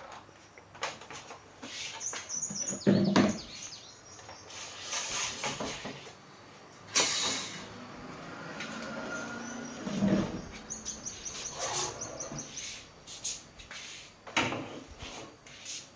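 Irregular clicks, knocks and rustles of things being handled, with a few louder thumps and two short, high chirping trills.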